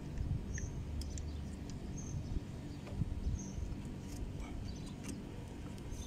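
Low steady background rumble with scattered faint clicks and a short high chirp that repeats about every second and a half.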